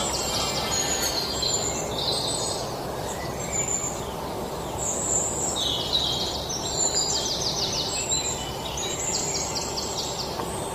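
Birds chirping, with short high calls and quick trills repeating over a steady outdoor background noise.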